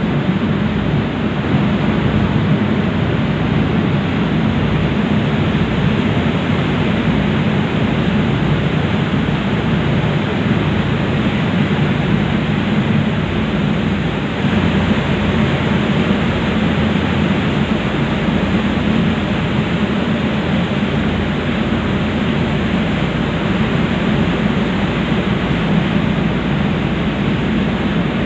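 Steady, loud drone of a passenger ferry under way: its engine hum mixed with the rush of water past the hull.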